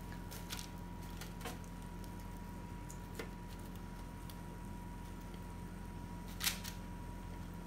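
Onion pieces being placed into an oven tray of oiled potatoes: a few faint light taps and clicks, the clearest one about a second before the end, over a steady low hum and a faint thin whine.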